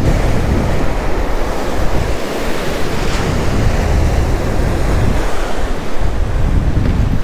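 Ocean surf washing over the shallows, with wind buffeting the microphone in a heavy low rumble.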